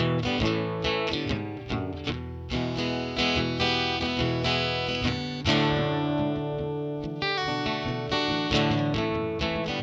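Guitar music: a run of plucked notes ringing over held chords.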